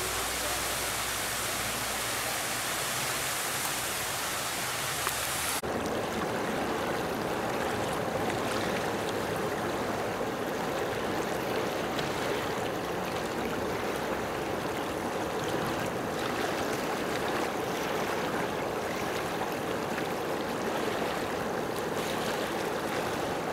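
Steady rush of running water, with no voices. About six seconds in the noise changes abruptly from a bright hiss to a fuller, lower rush, as if cut from one recording to another.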